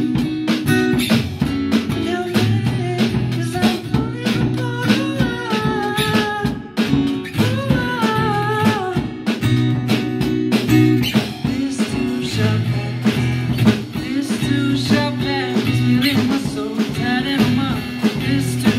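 Live music from a singer with acoustic guitar and a drummer on a small kit: a man's voice sings over the guitar, with steady drum and cymbal hits.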